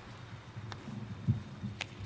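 Soft footsteps on a stage and a few light knocks and clicks near a lectern microphone as one reader steps away and the next steps up; the loudest knock comes a little past halfway.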